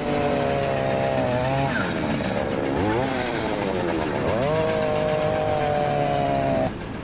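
A small motor running with a steady whine, its pitch sagging and recovering in the middle, as if briefly loaded. It cuts off abruptly near the end.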